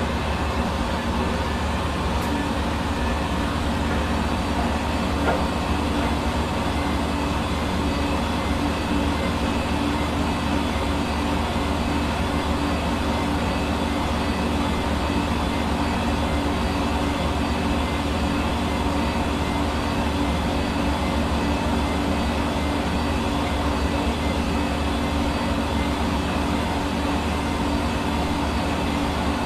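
Hair dryer running steadily: an even rush of blown air over a constant low motor hum.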